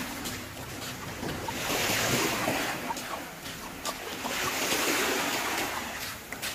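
Small waves washing onto a sandy beach, the surf swelling twice about three seconds apart, with wind on the microphone.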